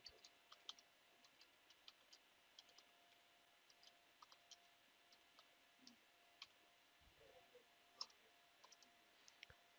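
Near silence with faint, scattered computer keyboard keystrokes, irregularly spaced, and one slightly louder keypress about eight seconds in as the command is entered.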